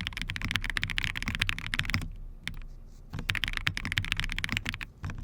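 Fast typing on a Jris 75 custom mechanical keyboard: a dense run of keystroke clacks that pauses for about a second around two seconds in, then picks up again.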